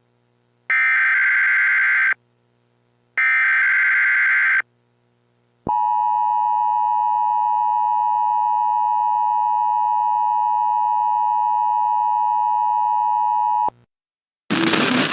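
Emergency Alert System header: two screeching SAME data bursts of about a second and a half each, then the EAS attention signal, a steady two-note tone held for about eight seconds that cuts off sharply, with the new warning's voice message starting near the end.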